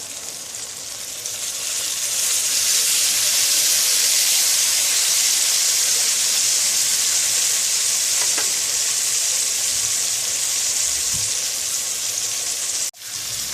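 Hot oil sizzling in a pan as tamarind water goes in over fried spices and roasted brinjal; the sizzle swells about two seconds in and holds steady, with a sudden brief break near the end.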